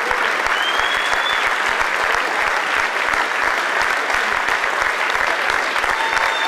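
Audience applauding steadily, with a few cheers or whistles rising above the clapping.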